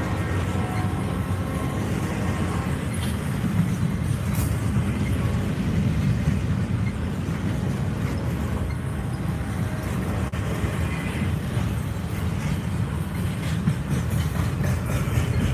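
Double-stack intermodal container freight train rolling past: a steady low rumble of steel wheels on the rails, with a few scattered clicks. A faint whine fades out within the first couple of seconds.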